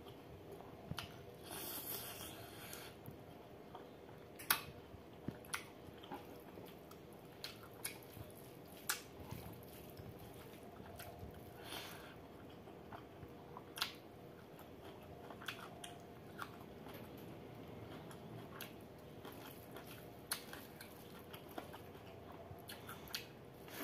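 Close-miked eating of rice mixed with perilla seed pork curry: steady chewing with wet mouth clicks and smacks at irregular intervals, the sharpest about four and a half seconds in.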